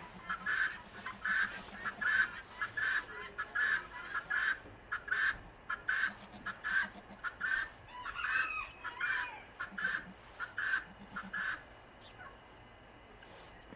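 Farm fowl calling: a long run of short calls about two a second, with a different wavering call overlapping about two-thirds of the way through. The calling stops a couple of seconds before the end.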